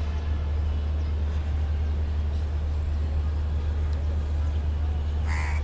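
Steady low rumble of city traffic, with a crow cawing once near the end.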